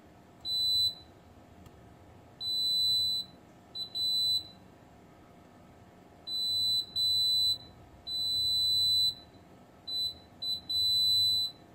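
Digital multimeter's continuity buzzer giving about ten high, steady beeps of irregular length, from a fraction of a second to about a second each, as the test probes make and break contact on a circuit board. Each beep signals low resistance between the probe tips, as across the short-circuited DA7 tantalum SMD capacitor.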